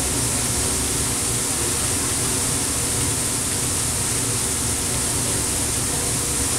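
Hamburger patties and chopped onions sizzling on a hot flat-top griddle, a steady even hiss with a low hum beneath.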